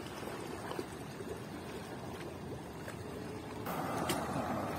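Water splashing and sloshing as a man wades into a muddy river, over a steady rush of moving water. It grows a little louder about three and a half seconds in.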